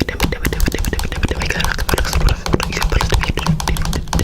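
Rapid, irregular clicks and taps, many a second, over a low hum.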